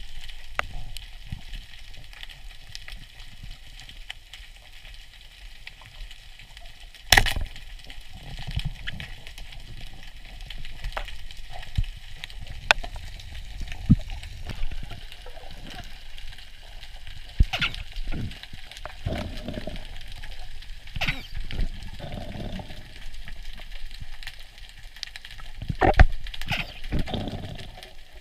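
Underwater sound heard through a camera housing: a steady crackling hiss with scattered sharp clicks, the loudest about seven seconds in and again near the end. Muffled low rushes of water come and go in the second half.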